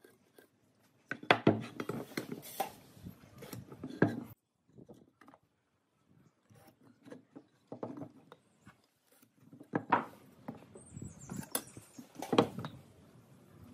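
Light knocks, taps and scrapes of pine blocks and a steel rule being handled and set down on a wooden workbench, coming in several short bursts with quiet gaps between.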